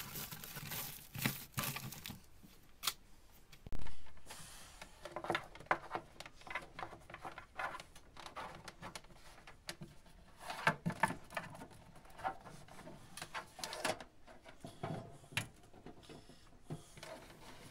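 Handling noises as aluminium flexible ducting is worked into place: irregular crinkling of the foil duct and small clicks and knocks. One louder knock comes about four seconds in.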